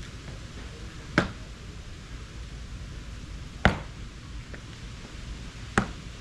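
Concrete pavers clacking as they are set in place, three sharp knocks spaced about two seconds apart.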